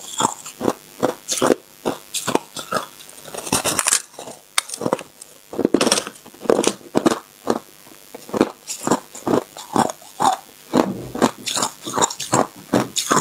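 Close-up biting and chewing of a block of packed crushed ice: a steady run of crisp crunches, roughly two or three a second.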